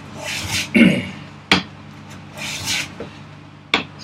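Hand plane taking shavings off a wooden board in a couple of short hissing strokes, with two sharp knocks of the plane or wood between them.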